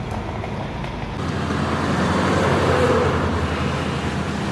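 Road traffic noise: a motor vehicle's engine swells up about a second in, peaks, then eases off near the end.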